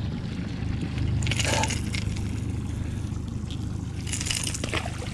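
Steady low rumble with water sloshing against the side of a small fishing boat, and two brief rushing swishes, about a second in and about four seconds in.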